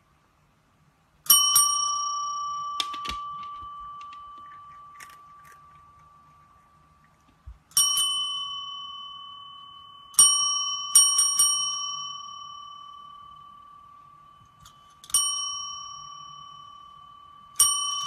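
Chrome service bell struck repeatedly by a cat's paw: about six dings, a few in quick succession, each ringing on and slowly fading.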